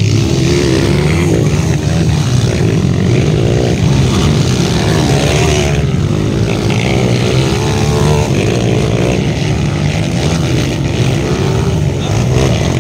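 Several Kawasaki KLX dirt bikes racing past, their small single-cylinder four-stroke engines revving up and down as the riders work the throttle over the rough track.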